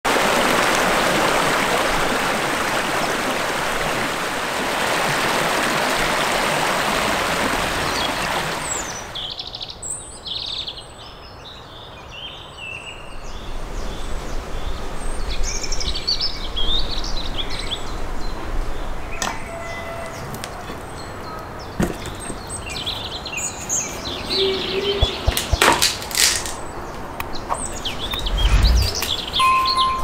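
A woodland stream rushes steadily over rocks, then cuts off suddenly about nine seconds in. After that, birds chirp repeatedly, with a low rumble underneath and a few sharp knocks near the middle and toward the end.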